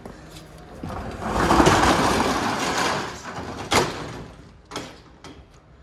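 A rough scraping, rustling noise for about two seconds, then a single sharp click or knock, followed by a few lighter clicks.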